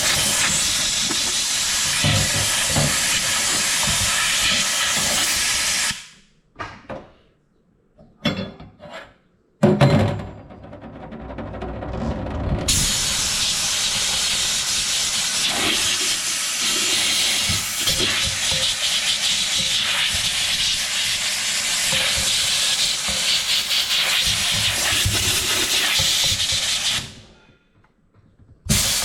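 Steam cleaner jetting steam in a steady hiss. It stops at about six seconds for a few short spurts, comes back with a sudden burst near ten seconds, swells for a couple of seconds, then runs steadily until it cuts off near the end.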